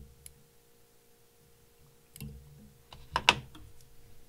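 Small steel fly-tying scissors trimming a stray fiber at the fly's head: light clicks, then a sharp double click a little over three seconds in.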